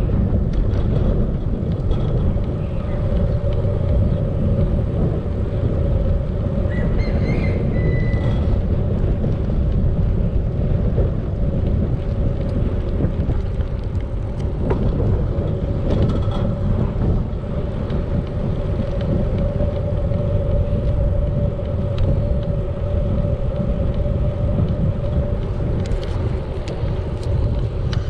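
Wind rushing over the microphone of a bicycle on the move: a steady low rumble, with a steady hum running through it and a brief high chirp about eight seconds in.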